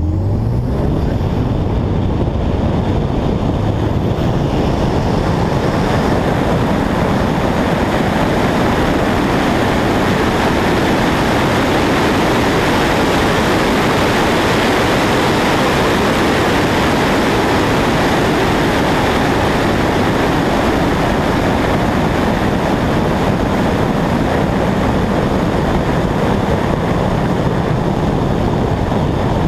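Wind rushing over a hood-mounted camera at speed with the 2009 Chevrolet Cobalt SS's turbocharged four-cylinder running under it, the engine note rising as the car accelerates in the first second or so, then a steady roar.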